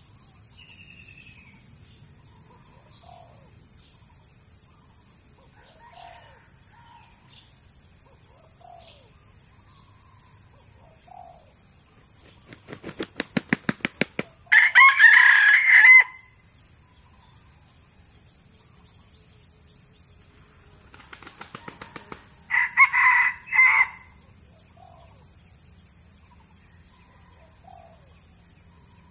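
Red junglefowl rooster crowing twice, each crow about a second and a half long. Each crow comes after a quick run of wing-flaps that speeds up just before it. The first crow is about halfway through; the second comes some eight seconds later. Soft, short bird calls are scattered in between.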